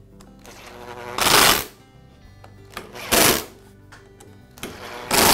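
Cordless drill-driver run in three short bursts about two seconds apart, driving the screws that hold the drive control's mounting plate to a lawn mower handle.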